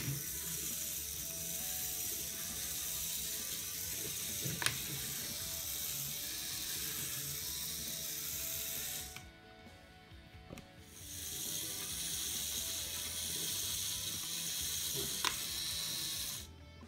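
LEGO robot dog's electric motor driving its plastic gear train, a steady whirring with gear clatter, now working properly with the missing tail gear fitted. It stops for about two seconds a little past the middle, then runs again until shortly before the end, with a sharp click about a third of the way in and another near the end.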